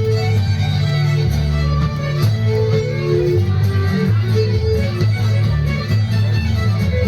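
A group of fiddles playing a tune together over guitar accompaniment and a steady low bass line.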